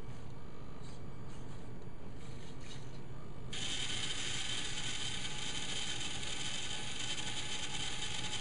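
Servo motors of a Lynxmotion AL5D robotic arm working faintly as the arm moves back home, then about three and a half seconds in the VEX motor of a simulated grinder switches on and runs steadily, spinning its wheel.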